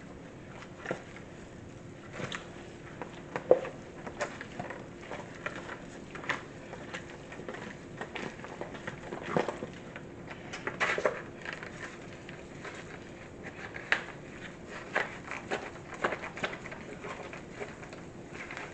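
Cookie dough being stirred in a bowl after eggs are added: irregular knocks and scrapes of the utensil against the bowl, with a faint steady hum underneath.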